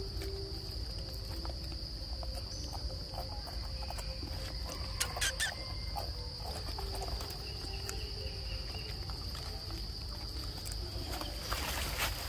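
Insects droning steadily in one high, unbroken note, with a few short clicks about five seconds in.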